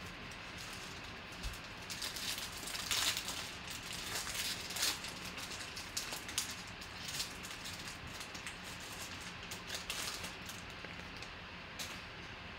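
Foil wrapper of a 2016 Panini Black Gold football card pack crinkling and tearing as it is opened by hand, a run of crackles that is busiest a few seconds in.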